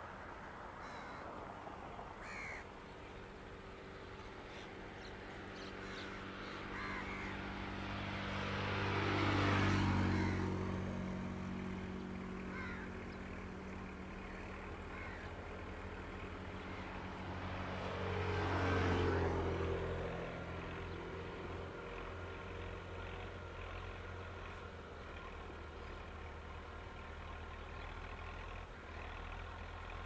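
Tractor engine running steadily while ploughing. Twice, about ten and nineteen seconds in, a louder rushing swell builds and fades as a vehicle passes close by, and a few short bird calls come near the start.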